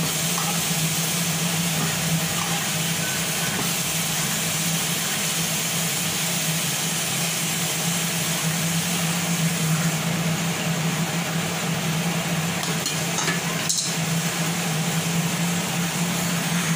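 Cauliflower manchurian balls deep-frying in hot oil in a steel kadai: a steady sizzle, with a steady low hum underneath. A short clink of the slotted spoon on the pan comes near the end.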